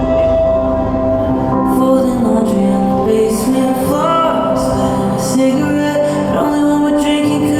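Background music: a slow song with sustained chords and held notes.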